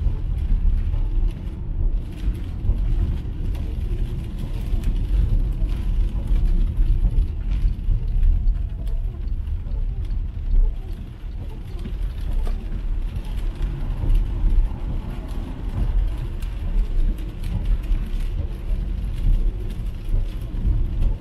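Cabin sound of an MG ZS EV electric car driving on a rain-soaked road: a steady low rumble of tyres and road noise with no engine note, and scattered light ticks of rain hitting the windscreen as the wipers sweep.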